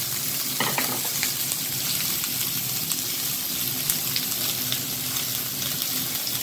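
Chopped beetroot sizzling in hot oil with tempered mustard seeds, cumin, dried chillies and curry leaves in a kadai: a steady hiss with faint scattered crackles.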